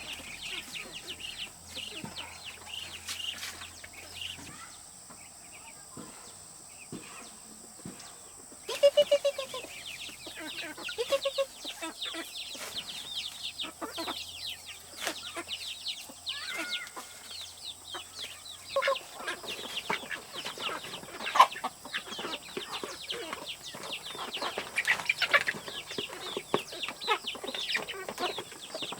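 Poultry calling: many short, high peeps and chirps throughout, with a few louder clucks about nine and eleven seconds in and busier calling in the second half.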